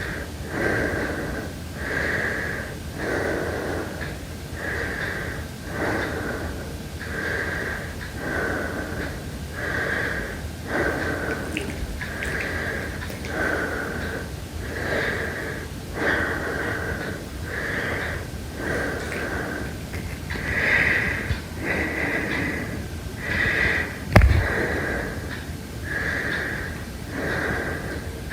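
Heavy breathing, each breath in and out coming about once a second in a steady rhythm, over a faint steady high tone. A single sharp knock sounds near the end.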